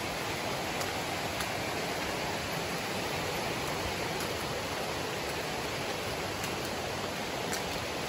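Steady rush of water from a rocky river's rapids, an even hiss.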